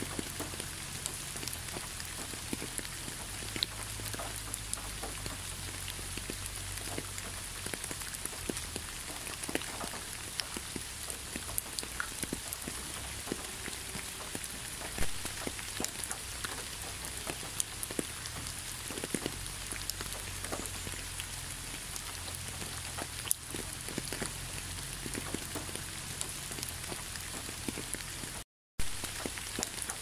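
Steady rain falling, with many individual drops ticking close by over an even hiss. The sound cuts out completely for a split second near the end.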